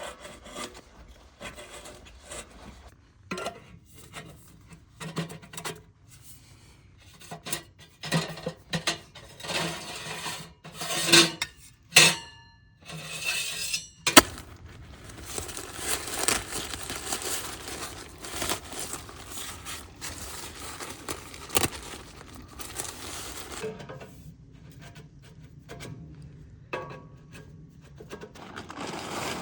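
Metal cookware and utensils clinking and knocking in uneven handling, with a few ringing metal strikes and scraping or rustling between them; one sharp knock about fourteen seconds in is the loudest.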